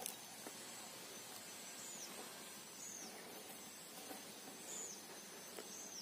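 Faint outdoor ambience: a steady high insect drone, with a small bird giving a short, high, falling chirp a few times, one to two seconds apart.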